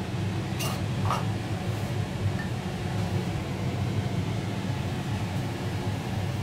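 Steady low hum of a restaurant ventilation fan, with two light clinks about half a second and a second in.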